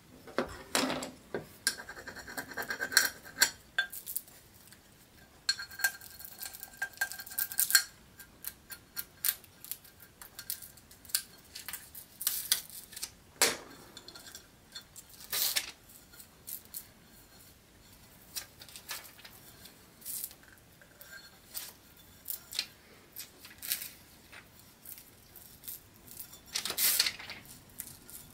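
A ceramic mug handled and turned while an adhesive stencil mask is pressed and rubbed onto it: irregular rubbing and light taps and clinks of the mug, with a brief ringing tone a couple of times in the first seconds.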